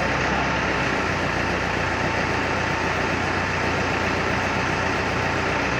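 Mazda truck-mounted crane's engine running steadily as a low, even hum while the crane lifts a heavy load.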